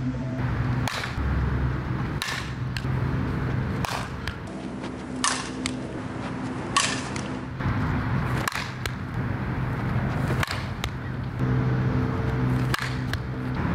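A softball bat hitting softballs in batting practice: about eight sharp cracks with a short ring, a second or two apart, over a steady low hum.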